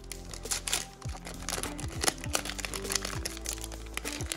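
A 2021 Topps Heritage Minor League card pack's wrapper being torn and crinkled open by hand, many quick crackles, over background music with a low bass line.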